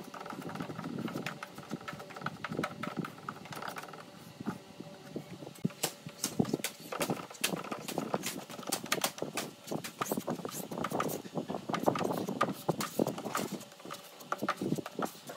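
Hand sanding of body filler on a car door panel: a sanding block with abrasive paper rubbed back and forth, giving rapid irregular scraping strokes with small clicks and knocks.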